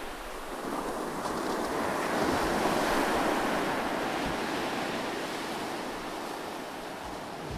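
Sea waves washing against a rocky shore, a swell of surf rising to its loudest about three seconds in and then falling back.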